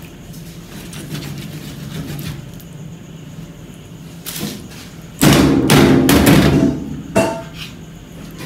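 Kitchen knife chopping at a tough chicken wing bone on a plastic cutting board: a quick run of hard knocks of the blade against the board about five seconds in, then one more sharp knock.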